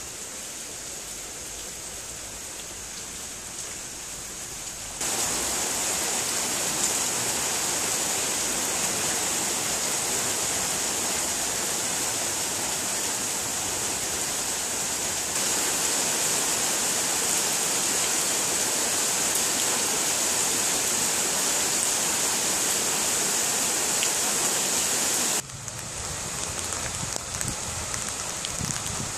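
Heavy rain pouring down in a dense, steady hiss. It jumps abruptly louder about five seconds in and drops back suddenly near the end, when separate drops pattering on surfaces become audible.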